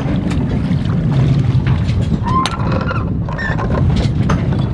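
Wind buffeting the microphone on a yacht's deck: a loud, steady low rumble, with a few light knocks and a couple of brief faint squeaks near the middle.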